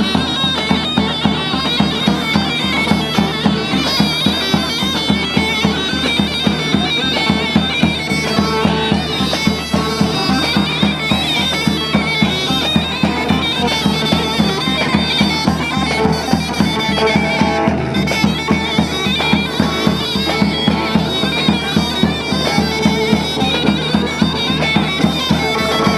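Traditional folk music: a shrill reed wind instrument plays a sustained, droning melody over a steady drum beat.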